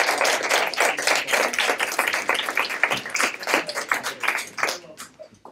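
A small audience applauding, many hands clapping irregularly, thinning out and stopping about five seconds in.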